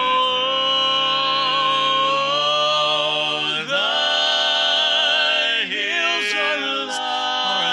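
Male barbershop quartet singing a cappella, holding long, close four-part chords that change together twice, about three and a half and five and a half seconds in.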